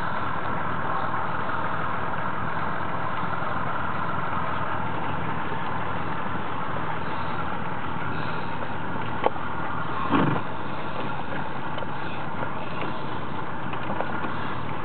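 Boat's outboard motor running steadily at low speed. There is a sharp click about nine seconds in and a brief noise a second later.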